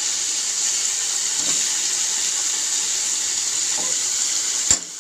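Chopped tomatoes and onions sizzling in hot oil in an aluminium kadai, a steady hiss while they sauté. A single sharp click sounds near the end, and the sound drops briefly after it.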